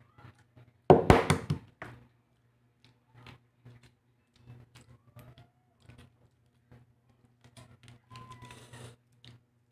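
Hard-boiled egg being cracked and peeled: a loud burst of knocks about a second in as the shell is cracked, then scattered small clicks and a short crackle near the end as the shell is picked off.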